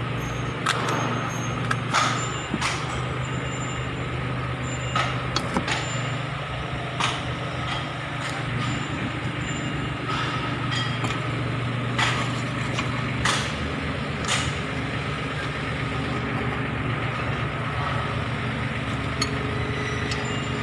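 A steady low engine hum, with scattered short sharp clicks and knocks.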